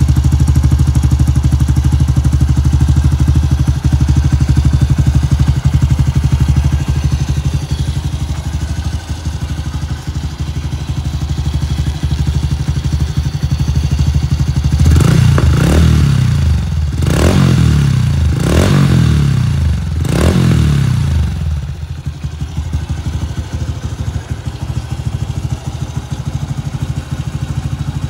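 2018 Honda Super Cub 125's single-cylinder four-stroke engine running through an aftermarket Yoshimura carbon muffler, idling steadily. About halfway through, several quick throttle blips rise and fall before it settles back to idle.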